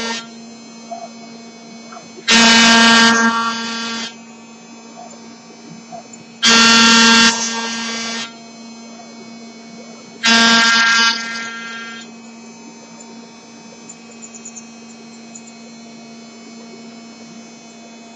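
MPCNC router machine milling a part. The spindle runs steadily, and three loud whining bursts come about four seconds apart. From about twelve seconds in, only the steady running sound is left.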